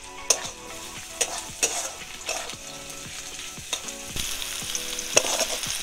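Metal spatula stirring sliced onion and chopped capsicum frying in oil in a steel kadai, with scrapes and clinks against the pan over a steady sizzle. The sizzle grows louder about four seconds in.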